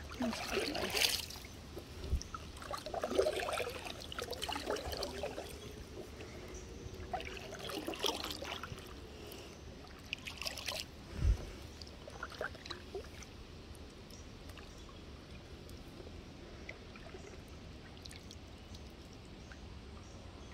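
Kayak paddle strokes, water splashing and trickling off the blade in a few short bursts during the first half. A single dull knock comes about eleven seconds in, then only a faint steady water hiss.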